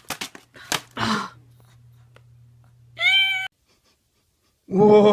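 A few light knocks, then about three seconds in a single short, high-pitched animal call. Near the end a loud, dense sound with many tones starts abruptly.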